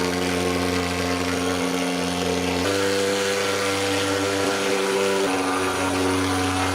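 Motorized fogging machine for insect fumigation running with a steady, buzzing drone. Its pitch steps up slightly about two and a half seconds in and drops back about five seconds in.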